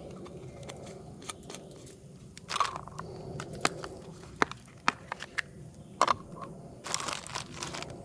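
Aluminium foil crinkling and crackling as it is handled, in irregular sharp crackles with louder rustling bursts about two and a half and seven seconds in.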